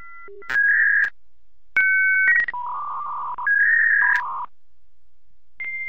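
Electronic beeps like telephone dialing and modem tones: short blocks of paired tones and buzzy held tones, stepping between a higher and a lower pitch, with a steady high tone with regular clicks starting near the end.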